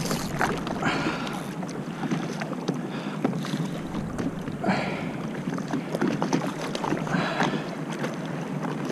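Sea water lapping and splashing against a paddleboard's hull, with a few louder slaps of small waves, and wind buffeting the action camera's microphone.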